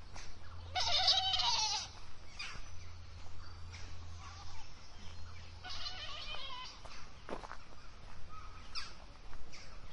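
Goats bleating: two loud, wavering calls about a second long each, one near the start and one about six seconds in. Birds chirp briefly in between.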